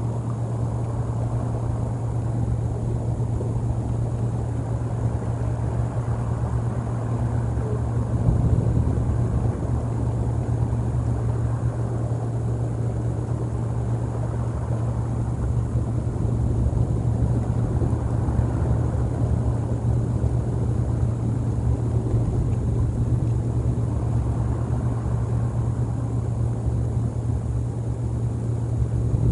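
Steady low rumble with a constant low hum underneath, a little louder from about eight seconds in.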